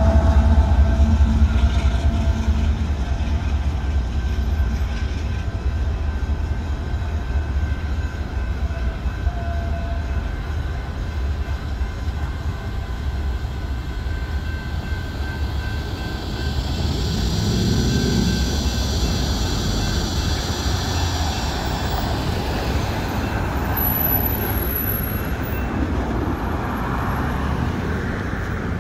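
Union Pacific freight train's diesel locomotive and cars rumbling away past a grade crossing, the low rumble fading over the first several seconds. Later, road traffic swells as cars start moving across the tracks.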